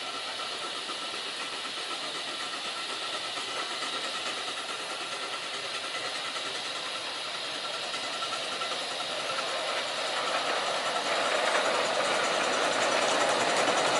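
Miniature 7¼ inch gauge garden-railway train running and drawing closer, growing steadily louder.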